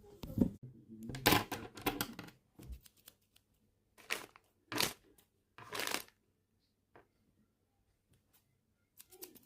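Handling noises: a cluster of short rustling, crinkling bursts in the first two seconds, three more separate ones a few seconds later, then a few faint clicks.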